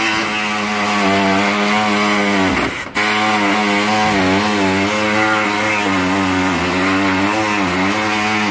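An electric power tool's motor running in long stretches, its pitch wavering and dipping as it is loaded, with a brief stop about three seconds in.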